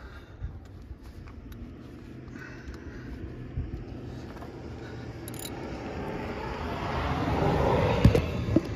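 A low rumbling noise that swells over a few seconds, then falls away, with a sharp knock near the end.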